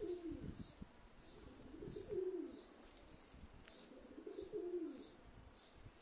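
A dove cooing three times, about two seconds apart, each coo a short low call that rises and falls. Over it, a small bird chirps high and evenly, about twice a second.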